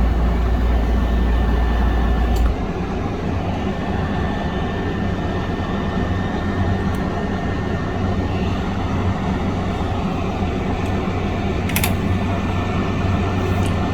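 Hot-air heat gun running steadily, its fan blowing as it shrinks heat-shrink tubing over a wire. The deepest part of the hum drops away about two and a half seconds in, and a few light clicks come through it.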